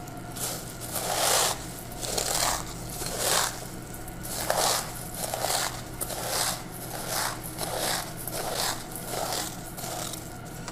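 Unsweetened corn flakes being crushed by hand in a stainless steel bowl: dry crackling crunches, one squeeze after another about once a second.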